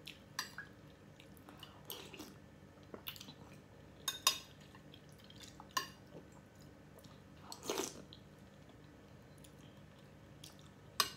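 Eating sounds: a metal spoon clinking and scraping in a glass dish of macaroni soup, and chewing. They come as short, separate sounds a second or two apart, with a slightly longer one about three-quarters of the way through.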